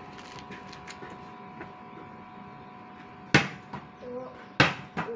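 A ball being dribbled on hard ground: two sharp smacks of the ball bouncing, about a second and a quarter apart, in the second half.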